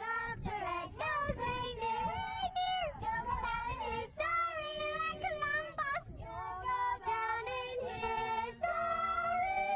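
Children's voices singing a Christmas carol together in long held notes, with a low rumble underneath.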